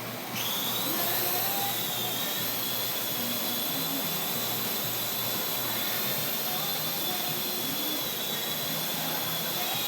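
Remote control drone's electric motors and propellers spinning up suddenly, then running steadily with a high whine and a rushing airflow noise; the pitch wavers slightly, as it does while the drone flies.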